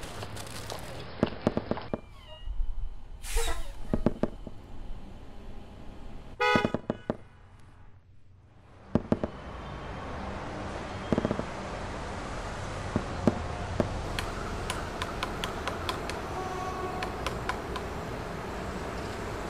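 Layered city-street sound effects: scattered clicks and knocks, a car horn honking briefly about six seconds in, then a steady wash of street noise with scattered taps.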